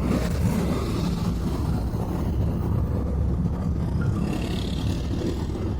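Steady low rumble of a car engine and road noise, with no clear pitch or rhythm.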